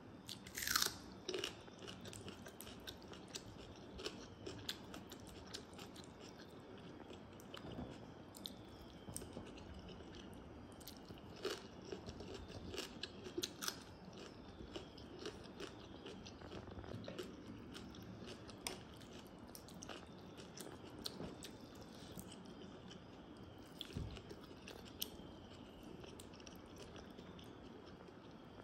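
Close-up eating sounds: a person chewing, with many small sharp crunches and clicks scattered throughout and one louder sharp sound just after the start. There are wet sounds of fingers mixing soaked rice in its water.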